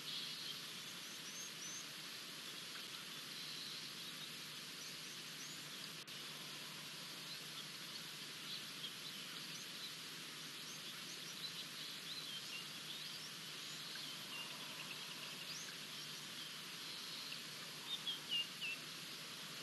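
Birds chirping in many short, scattered high calls over a steady hiss of bush ambience, with a brief run of louder chirps near the end.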